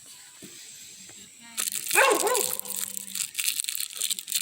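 A dog barks briefly, about two seconds in, over loud rustling and handling noise.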